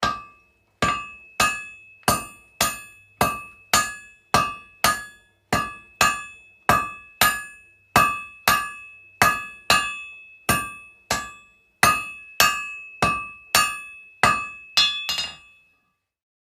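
Hammer blows in indoor construction work, struck steadily about twice a second, each with a short ringing metallic tone. The blows come in a quick cluster near the end, then stop.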